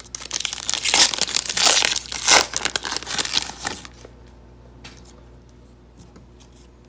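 Trading card pack wrapper crinkling and tearing as it is pulled open, stopping about four seconds in; after that only faint clicks of the cards being handled.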